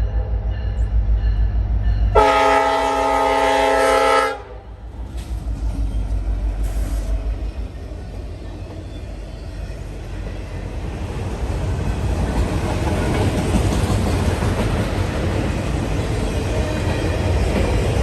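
Diesel locomotive's air horn blown once for about two seconds, about two seconds in, over the locomotive's low rhythmic engine throb. Then the steady rumble and clatter of the train's cars rolling past, growing louder toward the end.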